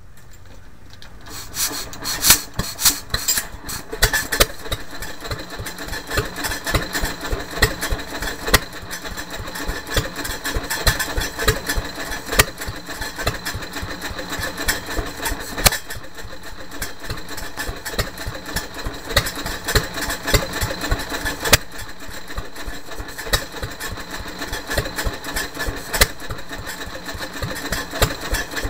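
1928 Fairbanks-Morse 2 hp Model Z single-cylinder stationary engine running. Its firing strokes come as sharp knocks at uneven intervals, and the sound builds up about a second in.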